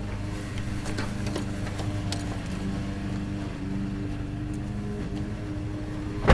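Car engine running, heard from inside the cabin as a steady low hum, with a heavy thump right at the end.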